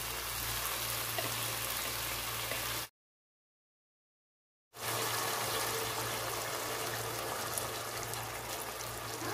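Tomato-and-yogurt masala sizzling and simmering steadily in a nonstick frying pan, over a faint low hum. About three seconds in, the sound cuts out to total silence for about two seconds, then resumes.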